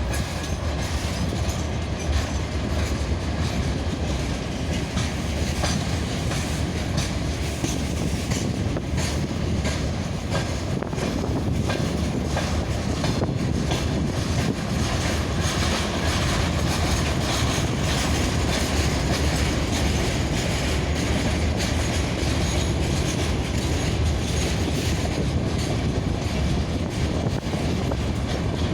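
Freight train rolling slowly past, its wheels clicking over the rail joints in an uneven run of clacks, with a faint squeal of wheels now and then.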